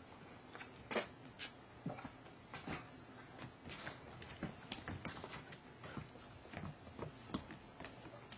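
Young kittens' paws and claws tapping and scrabbling on a wooden floor and cardboard as they play: faint, irregular light taps and scuffs, several a second.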